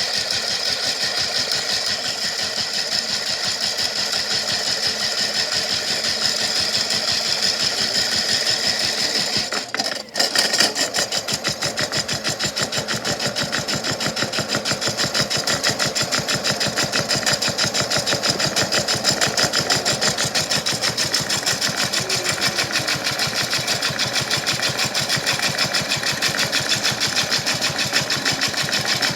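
Toy washing machine's small electric motor running with a fast, even buzzing rattle, a big rock loaded in its drum. It cuts out briefly about ten seconds in and starts again.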